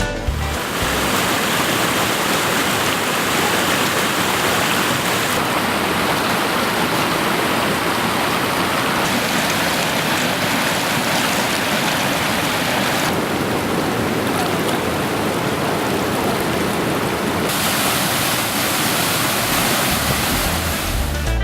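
Waterfall water rushing, a steady dense noise whose tone changes abruptly a few times.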